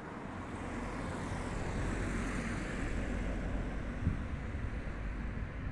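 A passing vehicle: its rushing noise and low rumble swell over the first two seconds and then hold steady.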